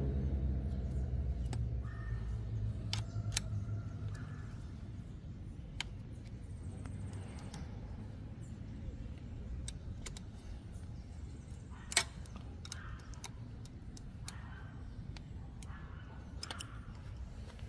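Scattered sharp metal clicks of a wrench and Allen key working on steel bolts as the seat-block bolts are tightened, with one louder click about twelve seconds in. A low rumble from a passing vehicle fades away over the first few seconds.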